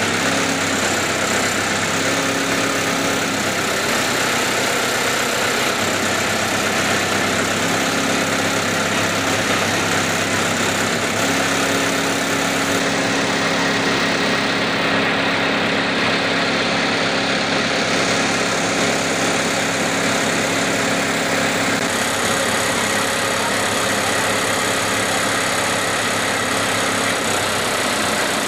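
Crawler down-the-hole drilling rig's engine running steadily at one speed: a constant low drone under a broad hiss.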